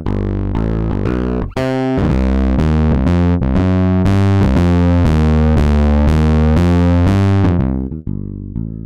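Looping bass line played through a multiband waveshaping distortion, its pitched notes repeating with a heavy, bright, distorted edge. The loop briefly drops out about a second and a half in. Near the end the distorted brightness fades away as the low-band saturation is turned almost off, leaving a thinner, quieter tone.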